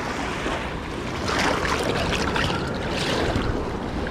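Small waves washing up onto a sandy beach. The wash swells louder about a second in and eases off near the end, over a steady low rumble of wind on the microphone.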